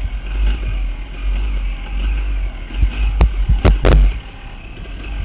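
KTM dirt bike running on the throttle along a rough offroad track, heard through a bike-mounted camera with heavy wind rumble on the microphone and a few sharp knocks about three to four seconds in. The rumble drops off shortly after the knocks as the bike slows.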